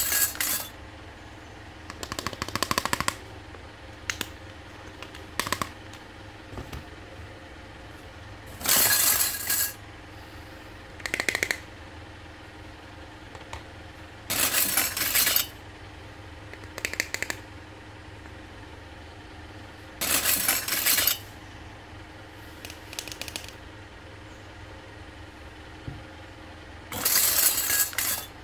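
Small plastic toy kitchen pieces rattling and clattering as they are handled and set down on a table, in short bursts of a second or less every few seconds.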